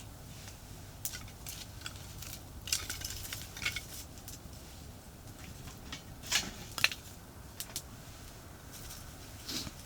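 Irregular light clicks and knocks of hard objects, with a cluster in the first half and two louder knocks past the middle, over the steady low rumble of a nearby expressway.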